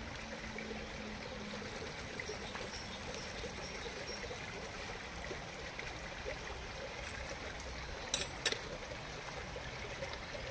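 Hot pasta water being strained off from a titanium camping pot through its lid, a steady trickling pour. Two brief clicks about eight seconds in.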